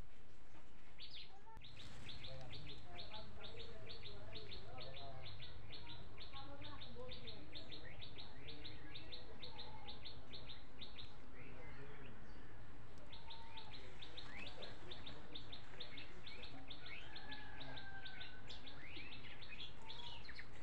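A bird calling in a fast, even series of short high chirps, about four or five a second, with a pause of a couple of seconds midway, over a low steady hum.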